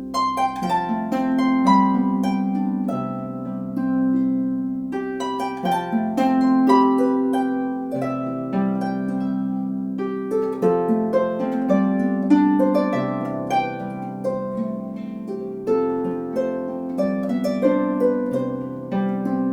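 34-string Celtic lever harp played solo: a plucked melody with ringing notes over bass notes struck every two to three seconds.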